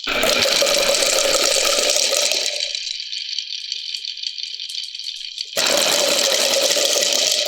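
Marbles rolling and rattling along a marble-run course of rain gutters and wooden rails: a steady high rattle throughout, with a louder, deeper rolling rumble at the start that fades out after a couple of seconds, and another that starts suddenly about five and a half seconds in.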